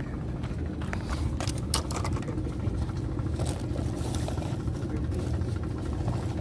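Steady low outdoor rumble, with a few short clicks and scrapes between about one and two seconds in.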